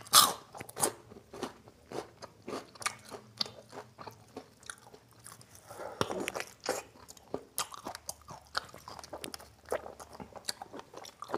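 Close-miked chewing and mouth sounds of a man eating spicy mutton curry and rice by hand: many short, irregular wet smacks and clicks as he bites and chews the meat.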